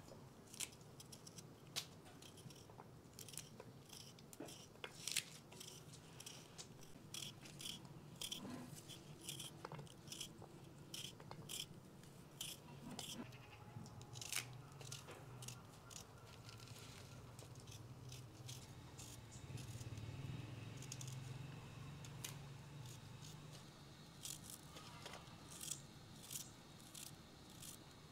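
Fresh herbs and spinach being picked over by hand: faint, crisp snaps and tearing of stems and leaves, several a second and irregular, over a low steady hum.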